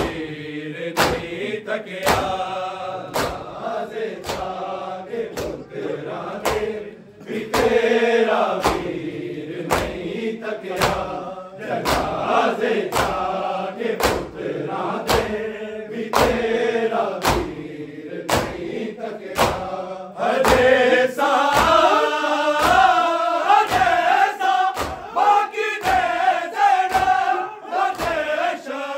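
Matam: a group of men chanting a Punjabi noha together while the crowd beats their chests in unison, open-handed slaps landing on a steady beat of about one to two a second.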